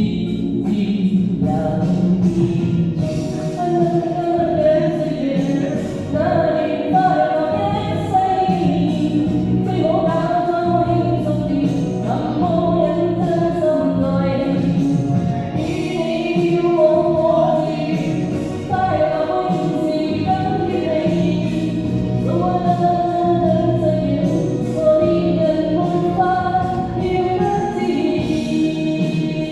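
A singer performing a song over a karaoke backing track, the voice carrying long held, gliding melody notes, with KTV-style echo on the vocal.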